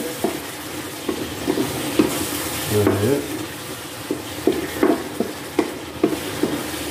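Chicken stir-frying in an electric wok, sizzling steadily, with a wooden spatula scraping and tapping against the pan about twice a second as it is stirred.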